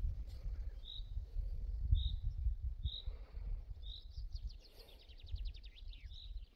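Low, uneven rumble of wind on the microphone. Over it a small songbird chirps about once a second, and partway through sings a fast trill of rapid notes falling in pitch.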